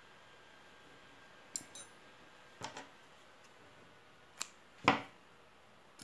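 A few light clicks and taps of crochet hooks being handled and laid down on the work, about four in all, the loudest one about five seconds in.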